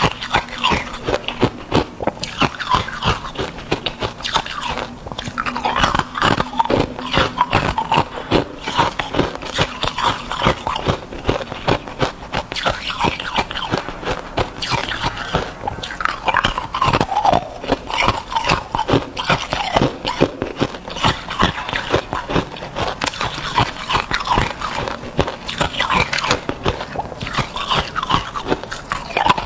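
Hard ice being bitten and chewed close to a clip-on microphone: a dense, continuous run of sharp crunches and cracks as the ice breaks between the teeth, with occasional brief squeaks.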